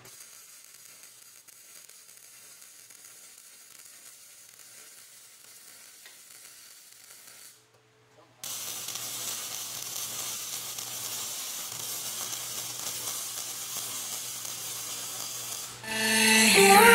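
MIG welder arc welding steel, a steady crackling sizzle like frying. It is faint at first, breaks off briefly about eight seconds in, then resumes louder as a second bead. Electronic music comes in near the end.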